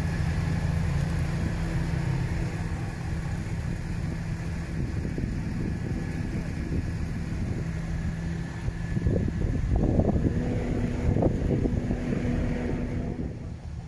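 A 1960s Cadillac hearse's V8 engine running low and steady as the car creeps past at walking pace. A short patch of louder sounds comes around ten seconds in.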